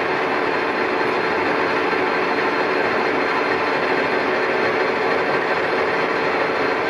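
Colchester Triumph 2000 lathe turning a long shaft, the cutting tool chattering with a steady harsh vibration. It is the sign of the slender shaft flexing with no steady to support it in the middle.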